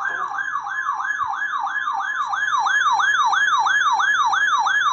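Weather alert radio sounding its siren alarm: a rapid falling-pitch siren, about four sweeps a second, over the steady NOAA Weather Radio 1050 Hz warning alarm tone, announcing an incoming weather warning. It grows louder about halfway through.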